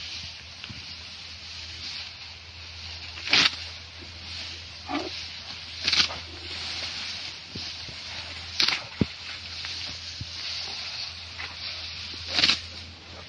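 Elephant exhaling through its trunk in four short, breathy blasts a few seconds apart, over a steady background hiss and low hum.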